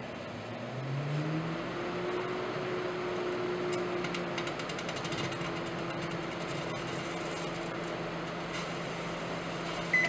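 Household microwave oven running, a steady hum that rises in pitch over the first second or so as it comes up to speed. A few faint crackles from the plasma arc between two touching whole grapes come around the middle, and the oven gives a short beep at the very end.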